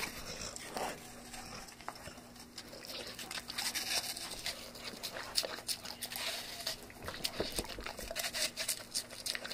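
A pet chewing a piece of apple, with many short, irregular crisp crunches.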